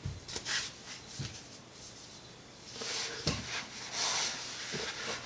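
A person crawling back under a pickup on a garage floor: scattered light knocks and clicks, then rustling and scraping from about three seconds in, with a sharp knock soon after and a louder thump at the very end.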